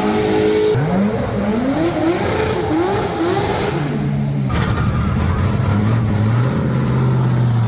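Drift cars' engines revving hard in a run of quick rising sweeps, then settling into a steadier, held note from about halfway through.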